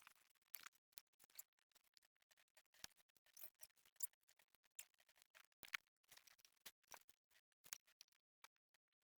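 Faint, irregular clicks and scratches of wires and small connectors being handled, cut and joined during head-unit wiring.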